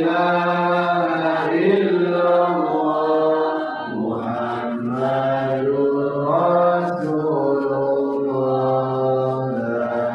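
Dzikir chanting: a voice intoning Arabic remembrance phrases in long held notes, the pitch dropping lower about four seconds in.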